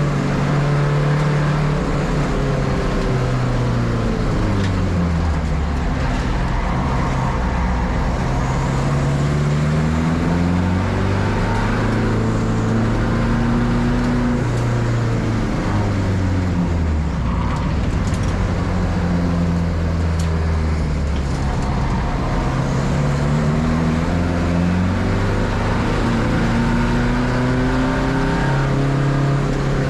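Volkswagen Polo Cupra TDI race car's engine running hard on track. Its pitch climbs and drops again and again as it accelerates and slows.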